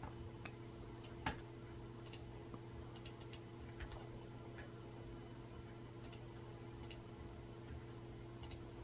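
Faint, scattered clicks of a computer mouse and keyboard, a single click here and a quick cluster of three or four about three seconds in, over a steady low hum.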